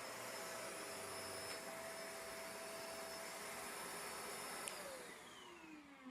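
Bissell MultiClean Allergen Lift-Off Pet upright vacuum running steadily with a whine over its airflow noise. Near the end there is a click as it is switched off, and the motor spins down with a falling whine.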